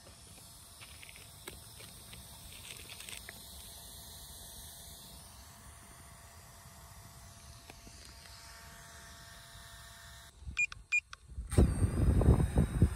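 Quiet outdoor ambience for most of the time; about ten seconds in, a few short high beeps, then a DJI FPV drone's motors spin up with a loud low rumble and a thin steady whine.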